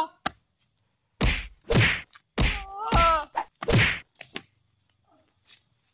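A rapid series of five loud whacking hits, about half a second apart, as kicks and blows land on a man lying on the ground; they sound like dubbed fight sound effects. A short cry of pain rises through the middle of the hits.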